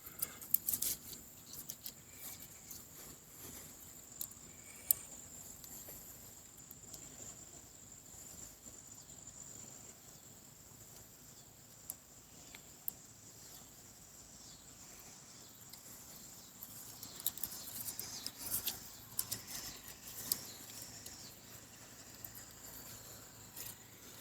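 Faint rustles and clicks of climbing gear and clothing being handled, busier about three quarters of the way through, over a steady high insect trill that fades out about halfway.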